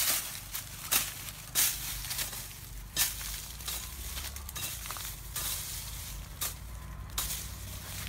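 Dry leaf litter crunching and rustling under feet and hands as someone moves low over the ground, in irregular sharp crackles that come thickest in the first few seconds and thin out after.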